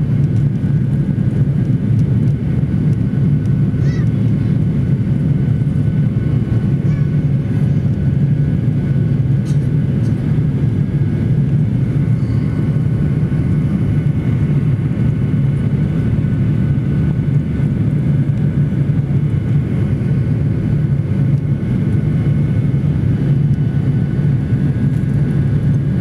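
Jet airliner's engines and rushing air heard from inside the passenger cabin during the climb after takeoff: a steady, loud low drone.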